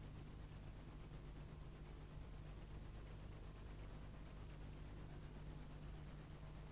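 Crickets chirping in a faint, steady, high-pitched trill of about eight pulses a second, with a low steady hum beneath.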